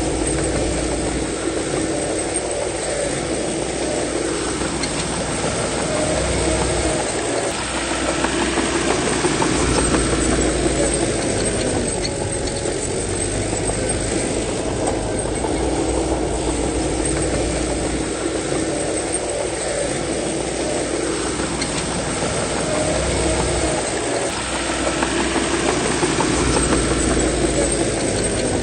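Bulldozer's diesel engine working under load, its pitch rising and falling over and over as it pushes soil.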